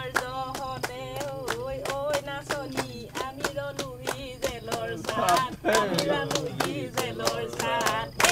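Unaccompanied group singing of a Bihu song about prison life, with the singers clapping a steady beat of about three claps a second. More voices join about five seconds in.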